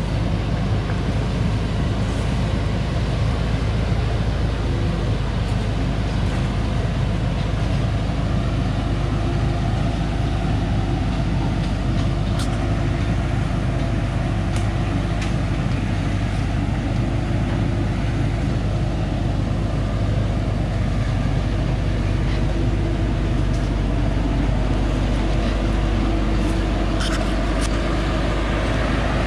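Thaco Forland FC950 4WD truck's diesel engine running steadily under a full load of acacia logs as it crawls along a dirt track, with a few faint clicks.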